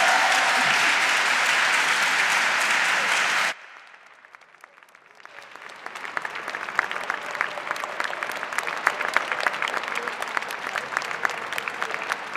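Audience applauding. The loud, dense applause cuts off suddenly a few seconds in, and after a short quieter gap it builds again with separate claps standing out.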